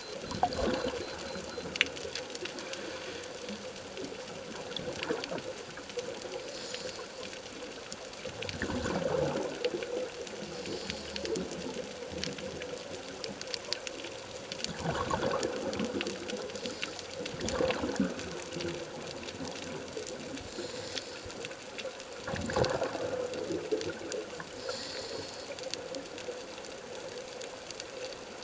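Scuba diver breathing through a regulator underwater: a burst of exhaled bubbles every few seconds, with a faint hiss of the inhale between them.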